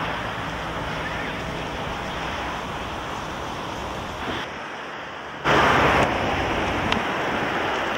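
Wind rushing over the microphone, a steady roar of noise. It dips briefly about four seconds in, then comes back louder in a strong gust about five and a half seconds in.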